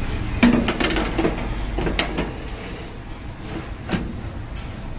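Metal baking tray being slid into an oven, clattering and knocking against the oven's rails a few times, loudest about half a second in, over a steady low hum.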